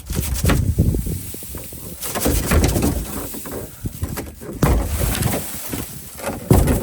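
Ice crackling and crunching in many irregular sharp clicks, over wind gusts buffeting the microphone with a low rumble.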